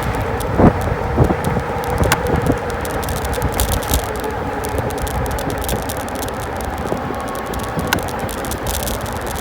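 RadMini electric bike under way, heard from a handlebar-mounted phone: steady road and wind noise with a steady hum under it, and the bike and mount rattling and clicking over the road surface, with a few harder knocks in the first few seconds.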